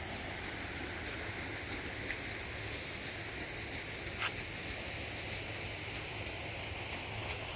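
Steady rush of flowing spring water, with two or three faint ticks.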